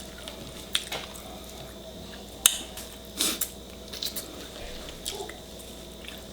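Wet mouth sounds of eating close to the microphone: scattered sharp clicks and smacks of chewing and lips, the loudest about two and a half seconds in.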